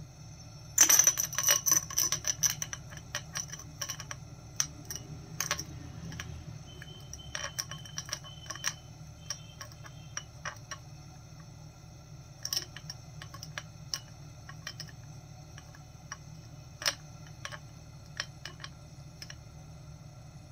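Glass apparatus clicking and clinking in light, sharp ticks as a bump trap and 250 ml round flask are turned by hand in a bench burner flame: a quick run of clicks about a second in, then scattered single clicks, over a steady low hum.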